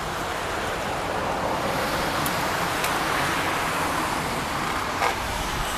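Steady road-traffic noise with a few sharp knocks from the building being demolished, the loudest about five seconds in.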